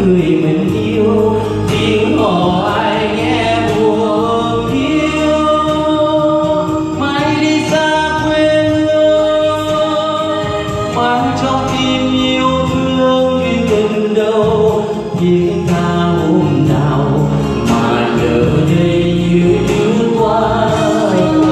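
A man singing a Vietnamese song into a handheld microphone, amplified over a backing track, holding long notes about a third of the way through.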